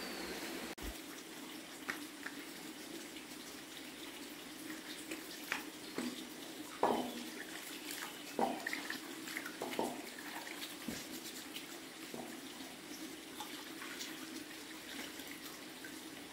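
Steady running of a shallow stream, with irregular splashes and sloshing as rice is rinsed in a metal pot and the cloudy water is poured off.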